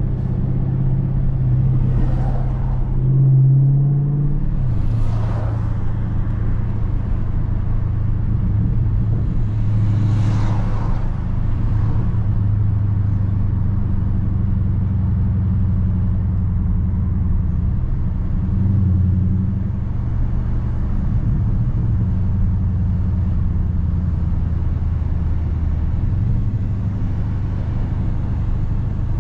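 Dodge Charger Scat Pack's 6.4-litre HEMI V8 exhaust running at low revs while driving: a steady deep drone that swells briefly a few times as the throttle changes, about three seconds in, near ten seconds and near nineteen seconds. Short rushing whooshes come about two, five and ten seconds in.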